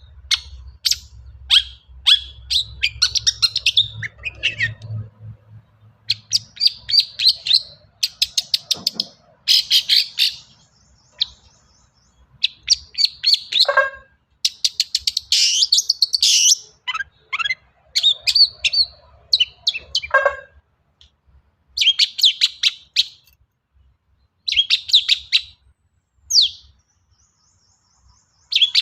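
Long-tailed shrike (cendet) singing hard: phrases of rapid, sharp, chattering high notes, each burst a second or two long, broken by short pauses, with mimicked calls of other birds strung into the song.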